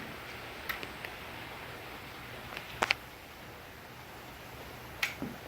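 A few sharp metallic clicks and clinks over a steady low hum and hiss: one about a second in, a loud pair about three seconds in, and another near the end. This is handling of tools and parts on the motorcycle; the engine is not running.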